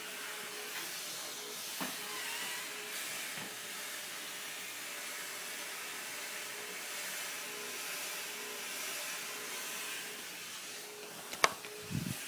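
Homemade low-lying fog machine running with a steady rushing hiss and a faint on-and-off hum. A sharp click comes about eleven seconds in, followed by a low thump just before the end.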